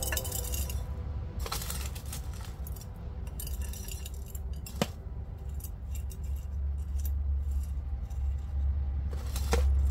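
Metal hand trowel scraping and scooping gritty potting mix in a foil pan and pouring it into a ceramic planter, with scattered clinks and rustles. One sharp clink about five seconds in, over a steady low rumble.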